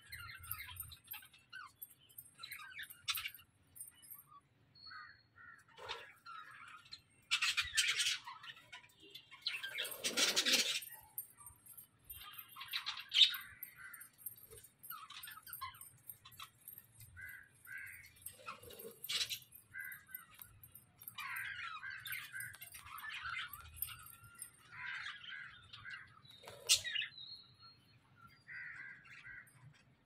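A flock of budgerigars chirping and chattering, short scattered calls throughout. A few louder bursts of noise break in around 8 and 10 seconds in.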